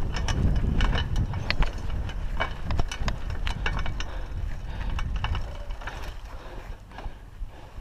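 Raleigh Ascent mountain bike rolling over a rough, stony dirt track: a low rumble of tyres and wind on the microphone, with irregular sharp clicks and rattles from the bike. The rumble eases off toward the end.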